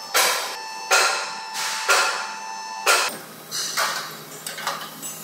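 Hammer blows on metal, four loud strikes about a second apart with the metal ringing between them, then a few lighter knocks.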